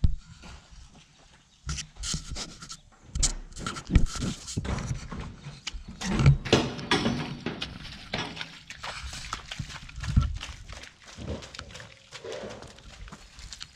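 Cattle right at the microphone: a calf noses at the camera, making irregular knocks and rubbing, with the animals' breathing and hooves in wet mud.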